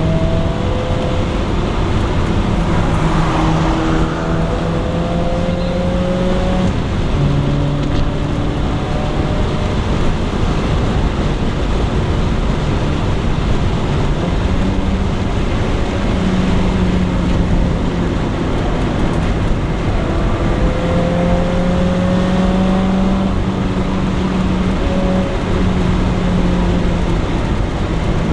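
Honda Integra engine running hard around a race track, its note climbing through the revs and dropping at gear changes, over steady road and wind noise.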